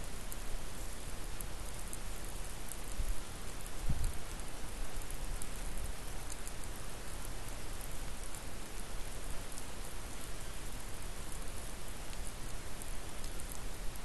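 Steady hiss picked up by a trail camera's microphone, with scattered faint ticks throughout and a couple of low bumps about three and four seconds in.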